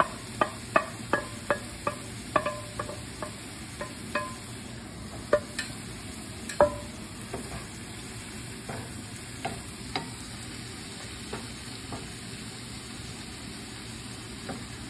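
Wooden spoon stirring and scraping diced vegetables, ham and tomato in a nonstick frying pan over a low sizzle. Sharp ringing taps of the spoon come about three a second for the first few seconds, then more sparsely.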